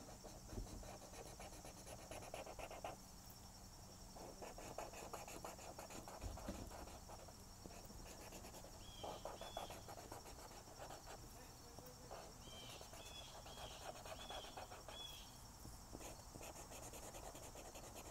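Faint scratching of a felt-tip marker on paper, in short stretches of stroking as a yellow outline is traced along the drawing's lines.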